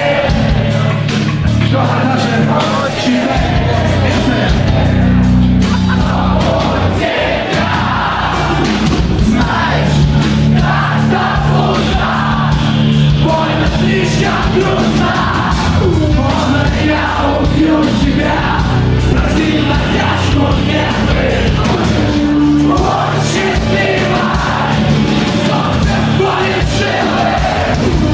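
Live heavy rock band playing with a male lead vocal singing over distorted guitars, bass and drums.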